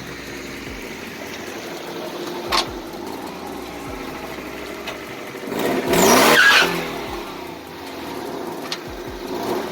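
Honda Civic's 1.6-litre four-cylinder engine running and revved once, rising and falling in pitch about six seconds in, as the newly installed stage 2 clutch is tested to see whether the car will move. A sharp click sounds about two and a half seconds in.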